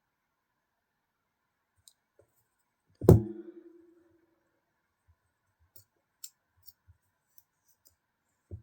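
A small hard object, most likely a tool, is set down on a work surface about three seconds in, giving one loud knock with a brief ring. After that come scattered faint light clicks of tiny screws and a small screwdriver being handled while a folding knife is reassembled.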